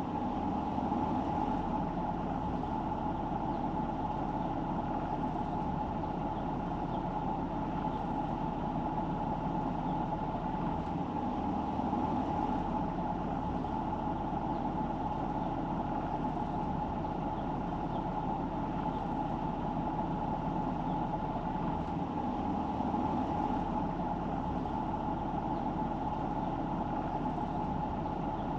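Steady road noise from a car being driven: engine and tyres droning evenly, with a constant mid-pitched hum and no sudden sounds.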